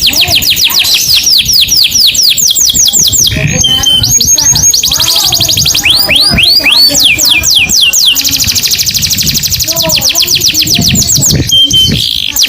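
Domestic canary singing in long, rapid trills of repeated down-sweeping notes, switching to a new trill every second or two. A short steady whistle comes about a third of the way in and again near the end.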